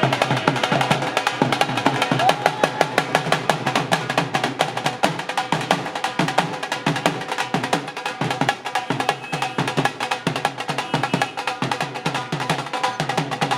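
Street drumming: several drums beaten hard in a fast, dense, unbroken rhythm.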